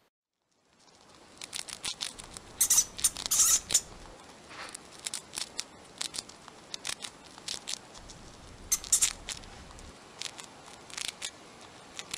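A guinea pig crunching and chewing carrot sticks: irregular sharp crunches, several a second, starting about a second in, with the loudest bites in a few quick clusters.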